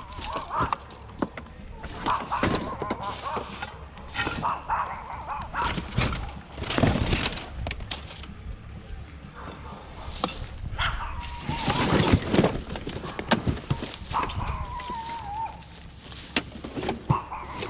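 A small dog barking on and off, mixed with clanks and rattles of scrap metal being handled.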